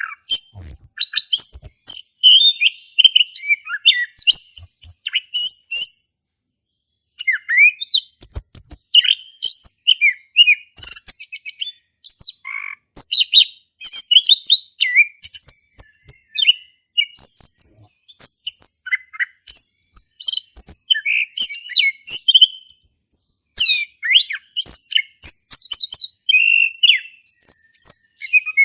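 Male chestnut-capped thrush singing in full voice: a long, continuous run of rapid, varied, high whistled and chattering phrases, with one short break about six seconds in.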